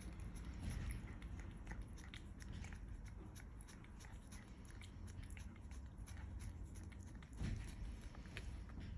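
A cat eating, with many small irregular crunching clicks as it chews its food. A low thump comes about seven and a half seconds in.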